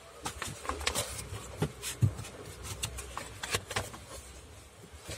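Hands handling plastic packaging and a car's carpeted boot floor board: scattered plastic rustling with irregular light taps and knocks.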